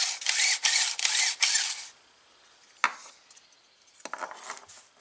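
Recoil starter of a push mower, off the engine, with its pull rope drawn out and rewinding in several quick strokes over the first two seconds: the mended starter now retracts its rope. A single sharp click about three seconds in, then light handling noise.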